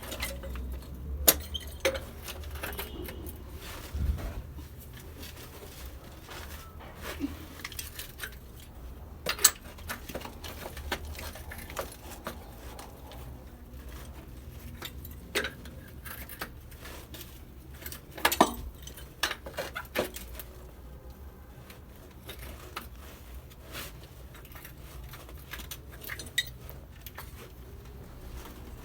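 Scattered metallic clinks and knocks of tools and pipe pieces being handled, a dozen or so sharp ones spread irregularly, over a low steady hum.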